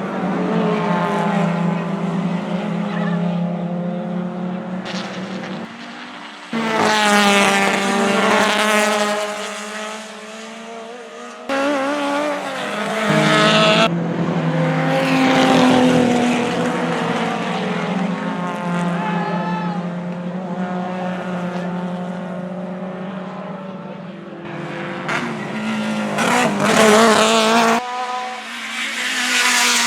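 Racing car engines running hard past a circuit, several passes in a row, the engine note climbing and dropping as the cars accelerate and shift gear.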